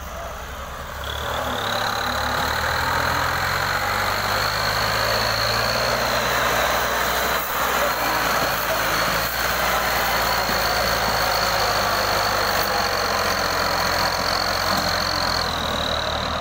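Diesel farm tractor engine running steadily under load while pulling a trolley heaped with soil, getting louder about a second in as it comes close, with a steady high-pitched whine over the engine.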